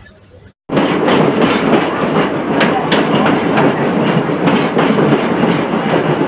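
Excursion passenger train rolling along the track, heard from an open gondola car: a steady rush of running noise with wheels clicking over the rail joints at uneven intervals. It cuts in suddenly less than a second in, after a brief quiet.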